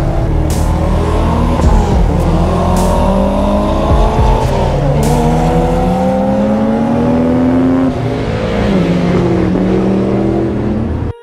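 Cars accelerating hard past on the road, their engines revving with the pitch climbing, dropping back and climbing again, several engines overlapping. A few sharp cracks in the first five seconds.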